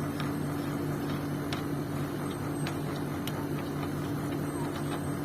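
Outdoor unit of a split air conditioner running in cooling mode, a steady compressor and fan hum, as the unit is readied for the refrigerant pump-down. A few faint ticks sound over it.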